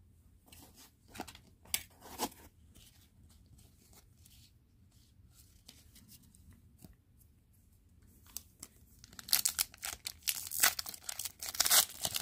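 A few soft clicks of trading cards being handled, then, about nine seconds in, a foil trading-card pack wrapper crinkling and tearing open.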